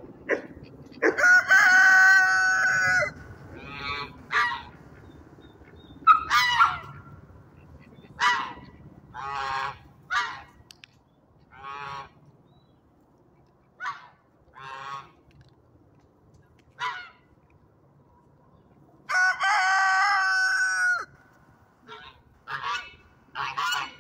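Domestic geese honking again and again in short calls, with two longer steady calls of about two seconds each, one about a second in and one near the end.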